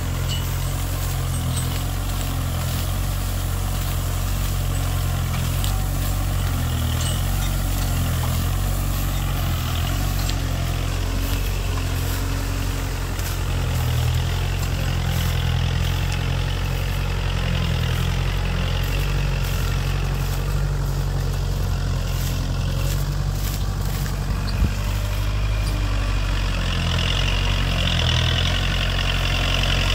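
Kubota MU4501 tractor's four-cylinder diesel engine running steadily under load while pulling a cultivator, a low even drone, with a single sharp knock about 25 seconds in.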